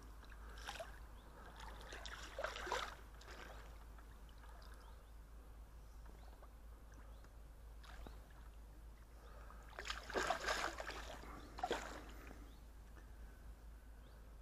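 Short bursts of water splashing, from a hooked carp thrashing at the surface as it is played in close: a few faint splashes in the first three seconds, then a louder flurry of splashing about ten seconds in.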